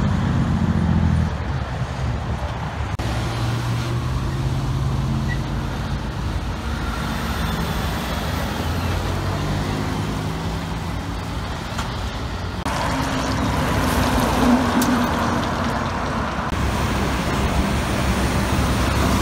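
Diesel engines of heavy trucks, a tractor-trailer and dump trucks, pulling past one after another over road and traffic noise. The engine note shifts in pitch as they accelerate.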